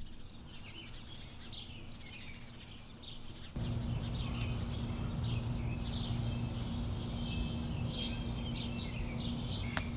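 Several small birds chirping and twittering outdoors, repeated short calls throughout. About a third of the way in the background changes to a louder low rumble with a steady hum under the birdsong.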